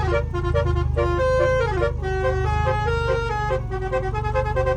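Telolet horn playing a quick melody of stepped, buzzy horn notes, several notes a second with a few sliding notes between them.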